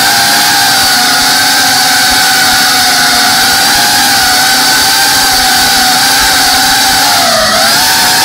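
FPV drone's brushless motors and propellers whining at a steady pitch, heard from the drone's own onboard camera. About seven and a half seconds in, the pitch dips briefly and comes back up as the throttle is eased and reapplied.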